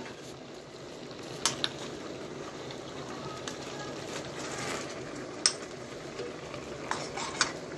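Chicken pieces cooking in a steel wok over a gas burner, giving a steady sizzle, with a few sharp clinks of a metal spoon against the pan.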